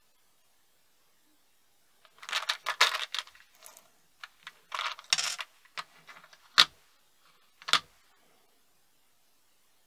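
A small plastic box of SCGT09 carbide turning inserts being handled and opened, with rattling and the inserts clinking from about two seconds in, then two sharp clicks about a second apart, the first the loudest.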